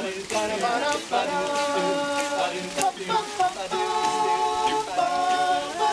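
Men's a cappella group singing close-harmony chords, several voices holding each chord for about a second before a short break and the next, with a few short sharp ticks in the mix.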